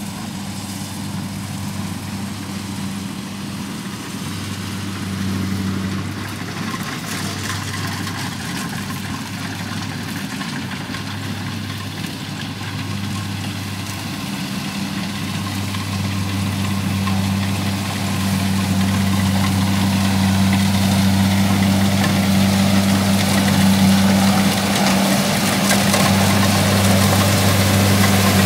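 Kubota combine harvester's diesel engine running with a steady low hum while the machine cuts rice, growing louder in the second half as it drives up close.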